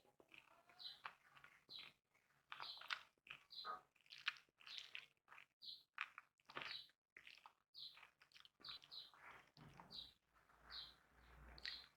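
Faint eating sounds of a person chewing and smacking their mouth: a string of short, irregular clicks and squelches.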